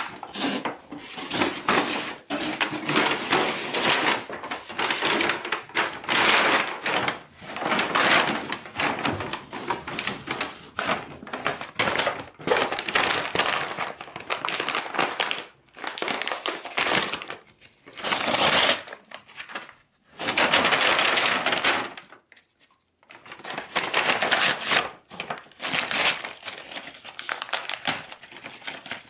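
Paper shopping bags and tissue paper crinkling, rustling and tearing in quick bursts as a beagle noses into them and rips them with its mouth and paws. There is a brief pause about three-quarters of the way through.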